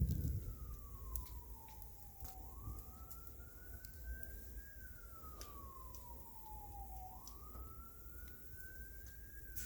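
A siren wailing slowly up and down, one slow fall and rise every five seconds or so, over scattered crackling pops from a bonfire and a low rumble.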